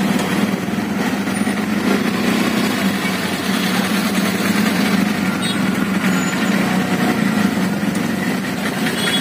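Auto-rickshaw engine idling steadily, heard from inside the open passenger cabin, with the hum of surrounding traffic in a jam.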